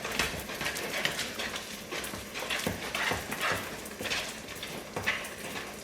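Spoon stirring thick muffin batter in a mixing bowl: irregular knocks and scrapes against the bowl, several a second.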